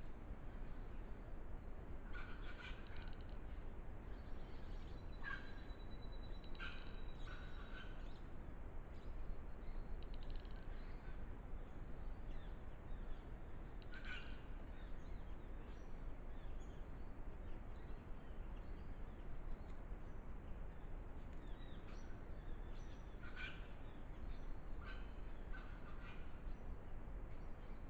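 Faint short bird calls coming in small groups several times, over the steady hiss of a trail camera's microphone.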